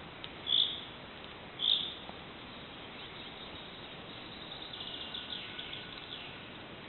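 Small forest songbirds calling: two short, sharp, high call notes about half a second and just under two seconds in, then a faint, quick twittering series in the second half.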